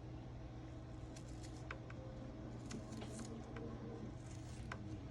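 Faint, irregular light clicks and taps of kitchen utensils during food preparation, over a steady low hum.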